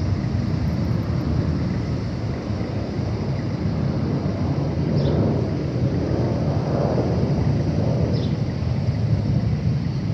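Wind rumbling on the microphone outdoors, with a broad swell of distant rumble about six to eight seconds in and a few short high chirps.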